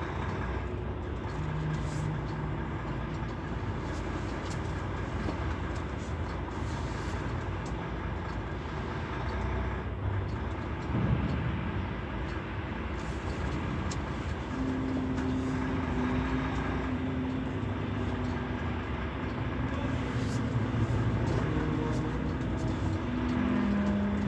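Steady heavy-engine running noise with a low, even hum that comes in more strongly about halfway through.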